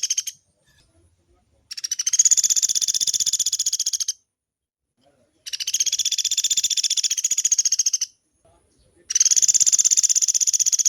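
Pelatuk beras woodpecker giving long, rapid, even rattling calls, each lasting about two and a half seconds, with short pauses between them. The tail of one rattle ends just at the start, three more follow, and the last runs on past the end.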